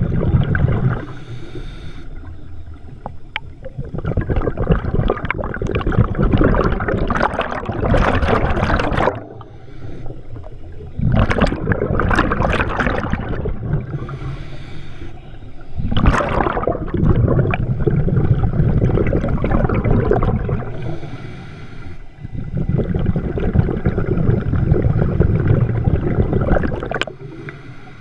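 Scuba diver breathing underwater through a regulator: short hissing inhalations alternate with longer low rumbling, gurgling rushes of exhaled bubbles, repeating every several seconds.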